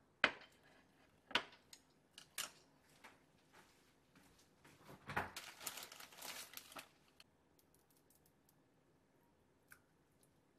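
Handling noises: a few sharp clicks in the first couple of seconds, then about two seconds of dense, crinkly crackling a little past the middle.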